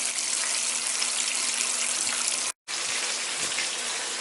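Water running steadily from a kitchen tap. It cuts out for a split second about two and a half seconds in, then runs on.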